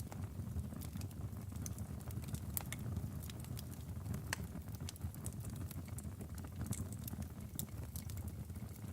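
Log fire burning: a steady low rumble of the flames with irregular sharp crackles and pops from the wood.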